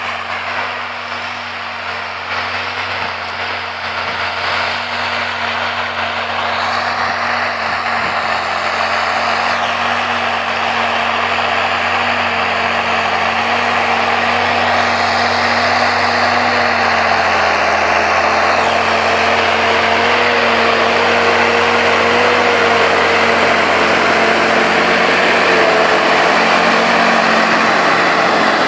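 Large John Deere tractor's diesel engine running steadily while pulling a tillage implement through soil, growing louder as it approaches and draws alongside.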